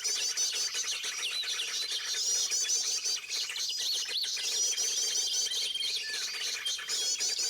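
Birds chirping and calling: clusters of rapid high chirps, a held high whistle, and looping trilled notes, recurring every few seconds.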